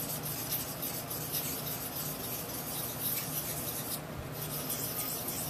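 Small steel craft-knife blade stroked back and forth across a hand-held piece of slate used as a water stone, a run of fine scraping strokes that pauses briefly about four seconds in.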